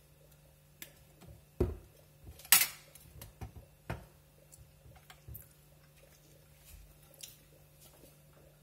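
Kitchen handling sounds: scattered knocks and clatter as a plastic squeeze bottle of dressing is set down on the counter and a glass baking dish is moved. A low thud comes about a second and a half in and the loudest sound, a short noisy scrape-like burst, about two and a half seconds in, followed by a few lighter clicks.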